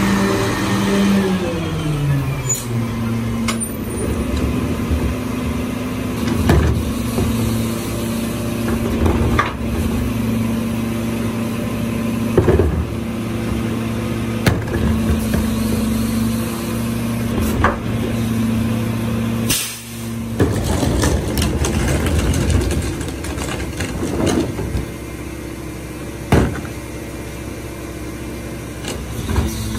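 Mack LR garbage truck's engine dropping in pitch as the truck comes to a stop, then idling steadily. Scattered short knocks and clanks sound over the idle, one louder bang about two-thirds of the way in.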